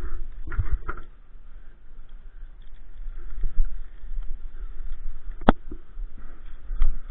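Steel forestry winch chain handled by gloved hands around a log, its links rattling and clinking in irregular knocks, with one sharp clink about five and a half seconds in.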